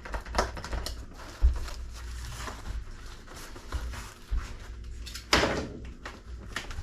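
Cardboard solar-panel boxes being handled and pulled apart: light knocks and scrapes, a dull thump about a second and a half in, and a louder rub of cardboard lasting about half a second near the end.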